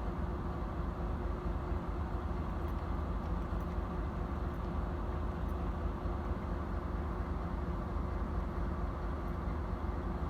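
Diesel locomotive idling steadily while standing, a low, even engine hum with a few constant tones.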